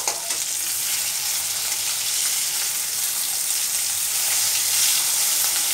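Small parshe fish (gold-spot mullet) shallow-frying in hot mustard oil in a steel kadai: a steady sizzle, with light scrapes and clicks of a metal spatula turning the fish over.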